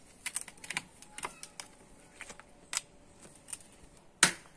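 Irregular clicks and taps of a knife and crab shell pieces on a wooden chopping block as crab is cut and cleaned, with one sharp, loud knock about four seconds in.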